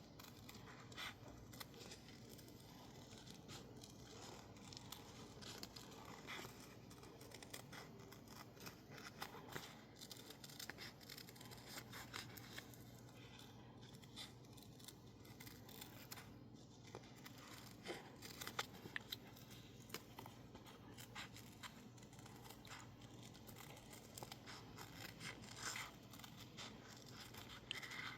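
Scissors cutting stickers out of label paper: a run of quiet, irregular snips with soft paper rustling.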